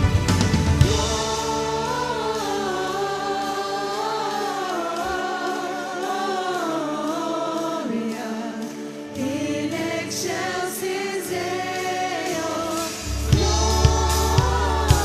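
Church worship song: a group of voices singing together with a band. The bass and drums drop out about a second in, leaving the voices over lighter accompaniment, then come back in strongly near the end.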